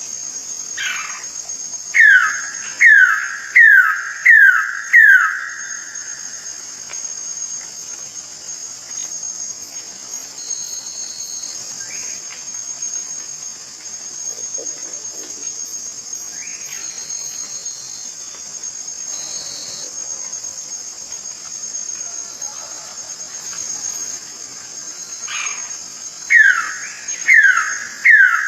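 A bird calling a loud whistled note that falls in pitch, repeated about once a second: five in a row about two seconds in, and again near the end. Under it a steady high insect chorus, like crickets, runs throughout.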